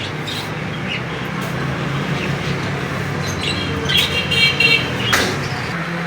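Steady low rumble of road traffic, with a vehicle horn sounding for about a second just past the middle and a few short high chirps.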